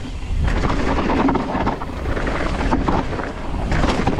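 Wind buffeting the microphone and knobby tyres rolling over dry, dusty dirt as a mountain bike descends a trail, with many small clicks and rattles from the ground and the bike.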